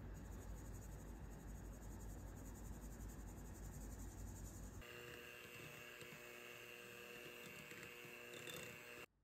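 A metal mesh sieve is shaken over a glass bowl, sifting almond powder with a soft rustle and a low rumble. About five seconds in, an electric hand mixer runs with a steady motor whir as it beats the powder into the creamed butter, and the whir cuts off just before the end.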